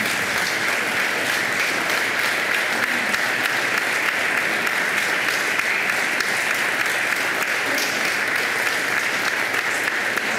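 Sustained applause from a large assembly of legislators clapping together, a dense, steady patter of many hands.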